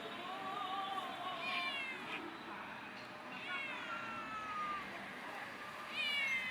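Stray cats meowing: about four drawn-out meows one after another, several falling in pitch.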